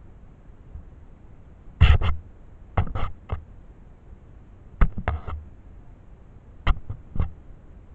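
Sharp knocks in small clusters, about ten in all, spread over several seconds with short pauses between the groups.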